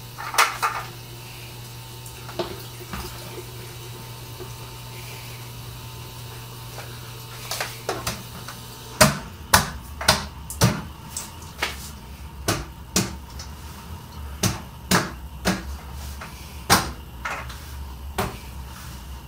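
A steady low hum, joined about halfway through by a string of sharp clicks or knocks, irregular, roughly one or two a second.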